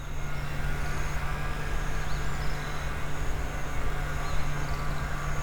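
Outdoor background: a steady low hum over a rumble, with faint short high chirps repeating about once a second.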